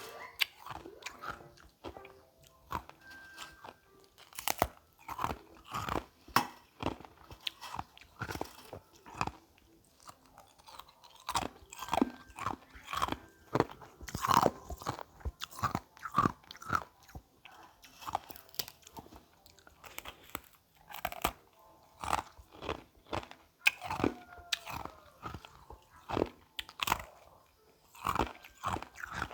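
Close-miked crunching and chewing of carbonated ice: irregular sharp cracks coming in quick clusters, with short pauses between bites.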